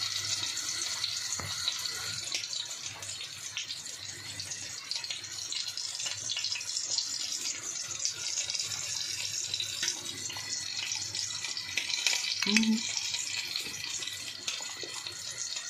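Liver cutlets frying in oil in a pan: a steady sizzle with fine crackling. A short voiced sound comes in about twelve and a half seconds in.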